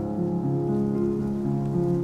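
Background music: sustained pitched notes, shifting to new notes about every half second.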